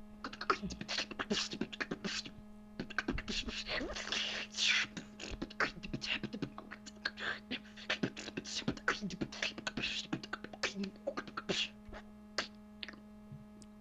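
A person beatboxing: a rapid run of mouth clicks, snare and hi-hat hits, fairly quiet, over a steady low hum.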